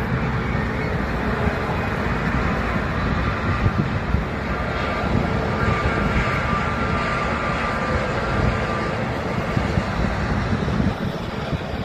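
Jet engines of an Air Astana Airbus A320-family airliner taxiing close by at low thrust: a steady rumble, with a faint whine that rises in the middle as the aircraft passes.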